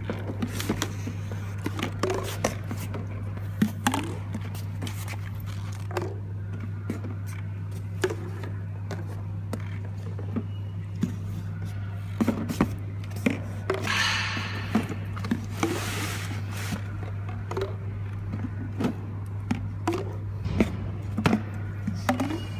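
Automatic bottle labeling machine running: a steady motor hum with frequent irregular clicks and knocks as cough syrup bottles pass through, and a short hiss partway through.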